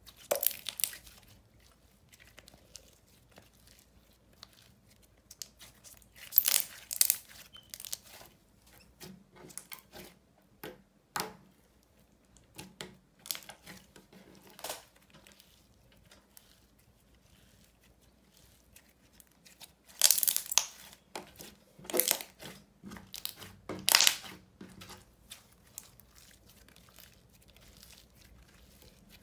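Thick white slime being squished, pressed and stretched by hand, giving irregular crackling and popping squishes. Loud clusters come about half a second in, around six to seven seconds, and again near twenty, twenty-two and twenty-four seconds, with quieter handling between.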